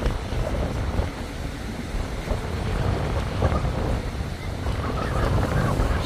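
Wind buffeting the microphone over the wash of surf on a beach, with scattered faint calls from gulls flying overhead, a few more of them near the end.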